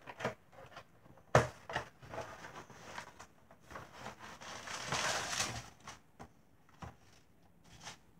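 Cardboard product box and plastic packaging handled on a table: a sharp knock about a second and a half in, a few lighter taps, and a stretch of rustling around the middle.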